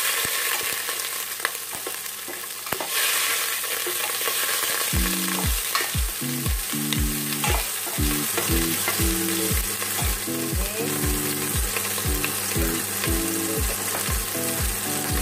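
Hot cooking fat sizzling in a stainless-steel pot while a plastic slotted spatula stirs and scrapes it, with a few sharp clicks in the first seconds. About five seconds in, background music with a steady beat comes in over the sizzling.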